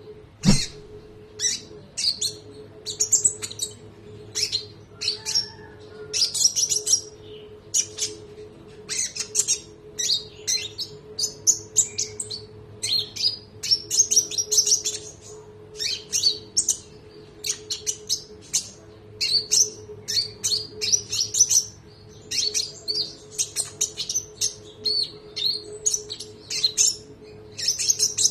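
A konin songbird singing nonstop in quick, sharp high-pitched notes and long rolling runs, over a faint steady low hum.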